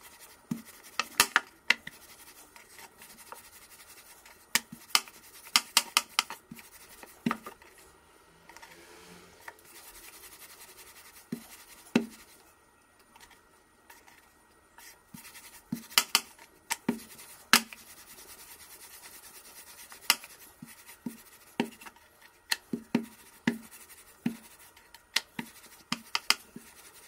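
Wooden rolling pin working tortilla dough on a rolling board: irregular sharp clicks and knocks as the pin clacks on the board, with faint scraping between them.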